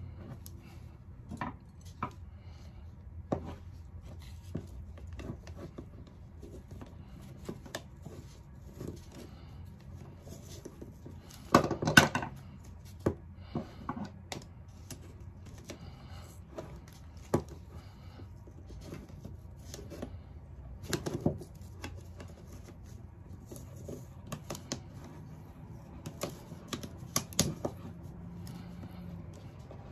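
Irregular metal clicks and clinks of long-nose MIG pliers working at a steel ratchet strap buckle, prying and twisting out webbing that is over-wound and jammed against the ratchet frame. The loudest cluster of knocks comes about 12 seconds in, with smaller bunches around 21 and 27 seconds.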